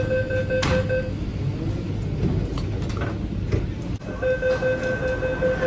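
MTR train door-closing warning tone sounding steadily, the doors shutting with a knock just before it stops about a second in. About four seconds in, another train's door-closing warning tone starts, over rumbling station noise.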